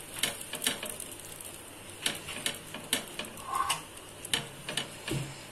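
Metal spatula scraping and tapping on a flat griddle (tava) as a butter-fried sandwich is pressed and turned, in short irregular clicks over a faint sizzle of frying butter.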